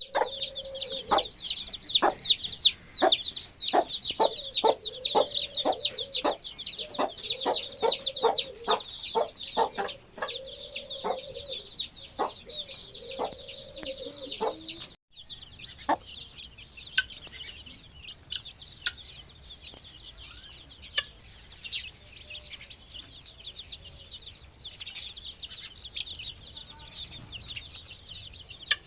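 A brood of desi chicken chicks peeping continuously, many high, falling peeps overlapping, with lower drawn-out clucking calls and short sharp clucks among them in the first half. About halfway the sound cuts off abruptly and resumes fainter, with only the chicks' peeping.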